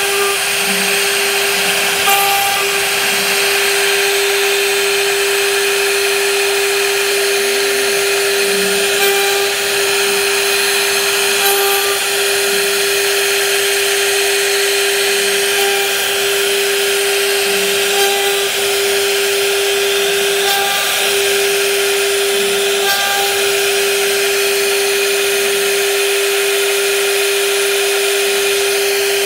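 CNC router spindle running and carving a relief pattern into a wooden panel: a steady whine held at one pitch over a constant hiss of the bit cutting wood.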